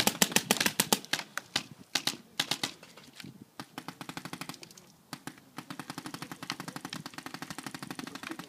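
Paintball markers firing in rapid strings of shots: a loud, close burst in the first second, another short burst about two seconds in, then a fainter, steady stream of shots, several a second, for the rest.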